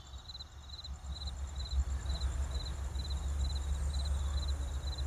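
Crickets chirping steadily, about three short pulsed chirps a second, over a low rumble.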